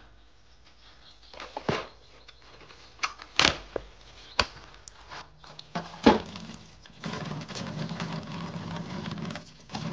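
Clear plastic egg tray clicking open and eggs knocking into a stainless steel bowl, a string of sharp clacks. From about seven seconds in, a kitchen tap runs steadily.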